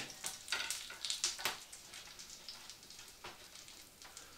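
Bare hands smearing butter over a stainless-steel baking tray: faint, irregular rubbing and squishing strokes.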